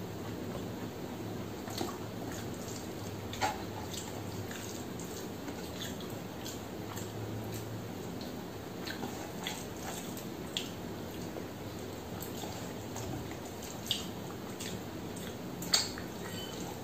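Eating rice by hand: wet, clicking chewing and smacking sounds and fingers squishing mushy, overcooked rice on a steel plate, with a few sharper clicks scattered through, the loudest near the end. A low steady hum lies under the first half.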